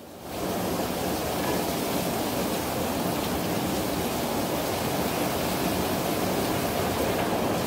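Heavy rainstorm: a steady rushing downpour driven by wind, coming in sharply just after the start and holding at an even level.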